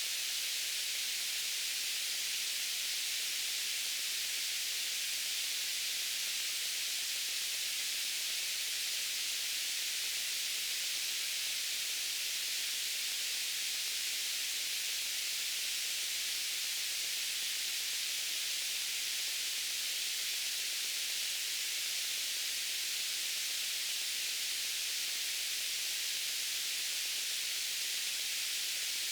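Steady white noise: an even, unchanging hiss, brightest in the upper range and thin in the bass.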